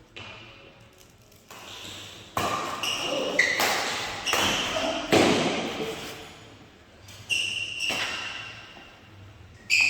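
Badminton rally: a series of sharp racket hits on the shuttlecock, about one a second, each echoing briefly.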